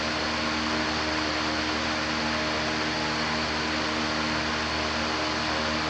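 Steady running machinery: an even whooshing rush with a low electric hum under it, unchanging throughout.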